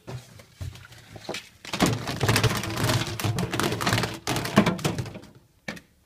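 Thunks and clattering from something being handled inside a tumble dryer's metal drum. A few light knocks come first, then a dense, loud rattling run of about three seconds, then a single knock near the end.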